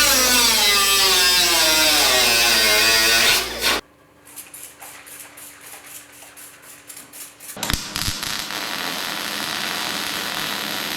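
A power tool's whine falling steadily in pitch as it winds down, followed by a quieter run of quick clicks, about four a second, then a thump and a steady hiss.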